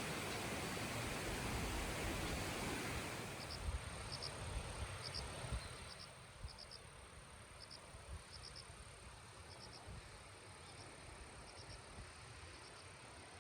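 A steady hiss for about three seconds, then rhythmic insect chirping: short chirps of two or three quick pulses, about one every half second to second, carrying on to the end.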